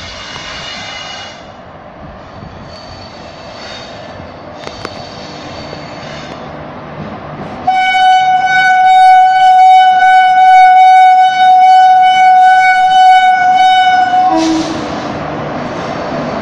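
An Indian Railways locomotive horn, sounding fainter in broken blasts at first. About halfway through it gives one loud, steady blast lasting some six seconds, then cuts off, leaving the rumble of the approaching train on the track.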